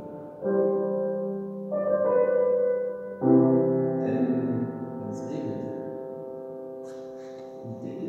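Grand piano: three chords struck about a second and a half apart, the last one left to ring and slowly fade for several seconds.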